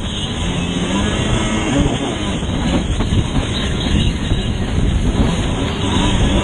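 Yamaha WaveBlaster's two-stroke engine running hard at racing speed, heard from on board. Water spray, the hull slapping through chop and wind on the microphone are mixed in.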